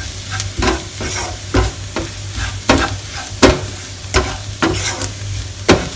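Wooden spatula stirring and scraping around a non-stick wok in irregular strokes, over the sizzle of onions, green chillies and powdered coriander and turmeric sautéing on a low gas flame until the spice powders are cooked through.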